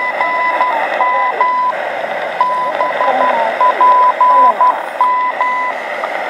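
Shortwave radio on 15.000 MHz sending a time station's Morse code identification, a tone near 1 kHz keyed in dots and dashes through static and fading. There is a short break in the keying about two seconds in, and it stops near the end. Faint wavering whistles from other signals run underneath.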